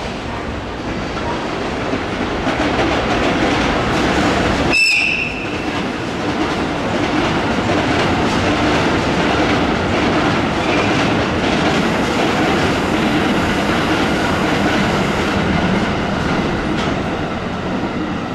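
A freight train of cement hopper wagons hauled by a JR Freight EF510-500 electric locomotive rolling past, with a steady rumble and clatter of wheels over the rail joints. About five seconds in there is a brief high-pitched tone, and the sound eases slightly near the end as the last wagons go by.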